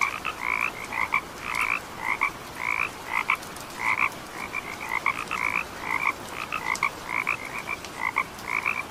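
Frogs croaking: short calls repeating two or three times a second without a break, several overlapping.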